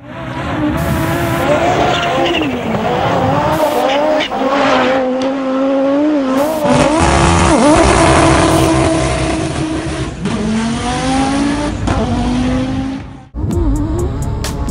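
Rally car engines revving hard, the pitch climbing and dropping again and again through gear changes and lifts, across several cut-together clips.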